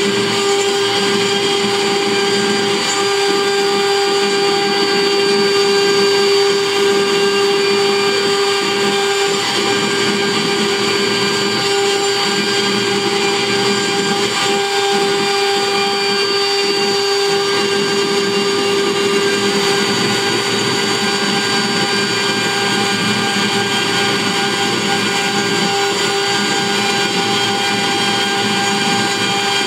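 CNC wood router spindle running at a steady, high whine while a tapered carving bit cuts a relief into a wooden panel, with cutting noise beneath the whine.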